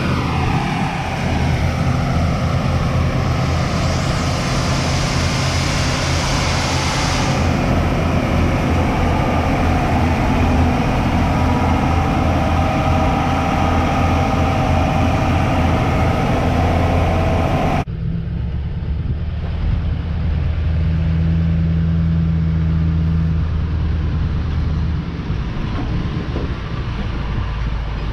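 Heavy vehicle engine running steadily, with a falling pitch near the start and a hiss of air about four to seven seconds in. About 18 seconds in the sound cuts abruptly to a duller engine hum.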